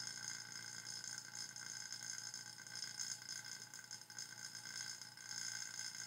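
Faint, steady running of an electric vacuum pump, a hum with a steady whine, while the test station's inlet is plugged off and the gauge is drawn up to near 25 inches of vacuum, its full-seal calibration reading.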